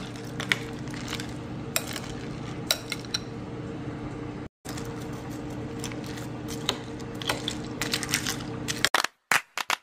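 Metal spoon stirring ice cubes, fruit and jelly in milk in a glass bowl: scattered clinks of the spoon and ice against the glass over a steady low hum. Near the end the sound breaks into a few short, separate clicks.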